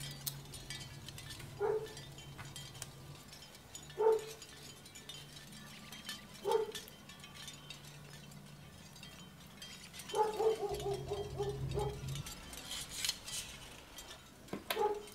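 Light clicks and taps of small plastic model-bus parts being handled and fitted together, over a low steady hum. Three short pitched sounds about two seconds apart stand out, then a longer wavering one about ten seconds in.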